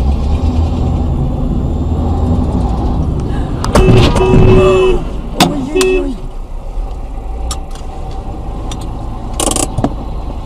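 Dashcam audio from inside a moving car: steady engine and road rumble. About four seconds in, a loud burst of roughly a second carries a held tone and wavering pitched sounds, followed by sharp knocks.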